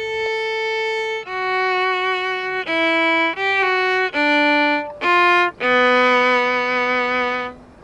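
Solo instrumental melody played one note at a time, each note held with short breaks between, ending on a long held low note.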